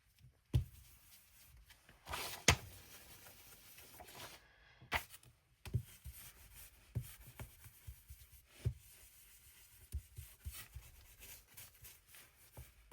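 Faint brushing and rubbing of a blending brush working ink onto cardstock, with scattered light taps and clicks from handling the brush and ink pad.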